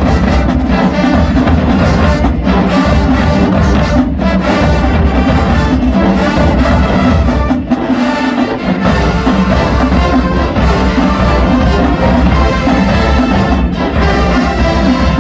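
Marching band playing loud, with a full brass section over drums; the low drums drop out for about a second near the middle, then come back in.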